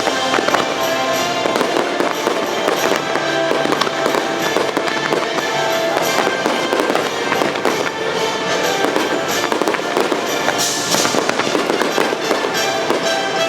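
Fireworks bursting and crackling in quick succession over the show's music playing through loudspeakers.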